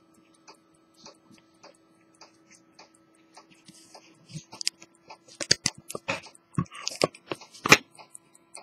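Handling noise from a handheld camera being moved about and set down on a workbench: faint scattered clicks, then a run of louder knocks and clicks in the second half, the loudest near the end, over a steady faint electrical hum.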